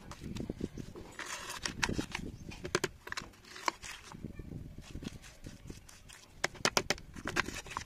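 A spoon stirring and scooping thick wet clay paste in a plastic tray: soft squelching, broken by sharp clicks of the spoon against the tray, with a quick run of clicks near the end.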